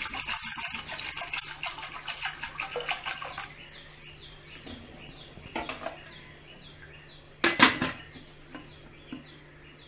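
Water poured from a plastic bottle splashing into a metal pressure cooker over soaked black urad and rajma for the first three and a half seconds. After that comes a metal clatter, then a loud metallic clank about seven and a half seconds in as the lid goes onto the cooker.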